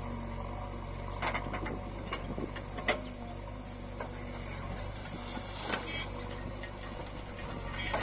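Diesel engines of a JCB backhoe loader and a tractor running steadily while the backhoe loads soil into the tractor's trolley, with a few sharp clanks and knocks from the bucket and loader arm, the loudest about three seconds in.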